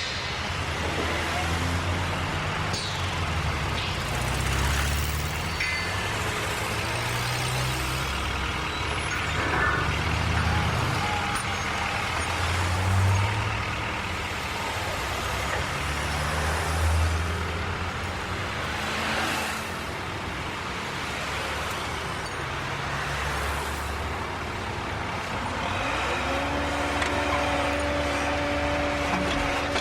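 Heavy diesel construction vehicle engines running at a worksite, their low rumble swelling and shifting in pitch over a constant wash of machinery noise. Near the end a steady whine comes in on top.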